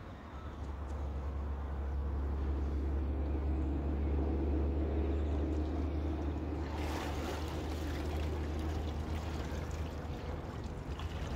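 Water splashing and dripping as a swimmer hauls himself out of the water onto a wooden jetty, louder from about seven seconds in, over a steady low rumble.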